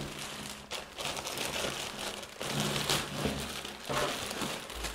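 Packaging rustling and crinkling in hand, with a few light knocks, as the hose is taken out of its wrapping.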